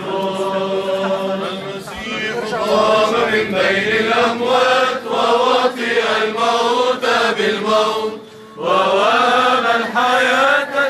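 Men's choir singing Byzantine chant, the melody moving over a held low drone note in the first seconds, with a brief breath pause about eight seconds in.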